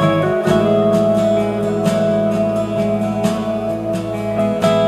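Instrumental music with plucked and sustained string notes, played through a small Elekit TU-870 stereo tube amplifier (6BM8/ECL82 valves, 2 W per channel) driving Pioneer SP-BS22-LR bookshelf speakers.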